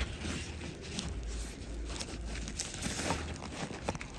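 Rummaging in a canvas backpack: fabric rustling and small items knocking and clicking against each other in scattered short strokes.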